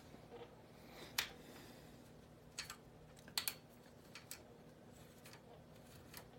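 A handful of faint, sharp metal clicks and taps, spaced a second or so apart, as an aluminium bike-rack strut is handled and fitted against the bicycle frame.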